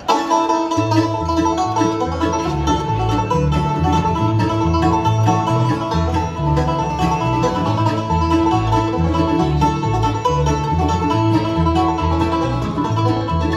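Bluegrass band playing an instrumental introduction: banjo, acoustic guitars, mandolin and fiddle over an alternating low bass line.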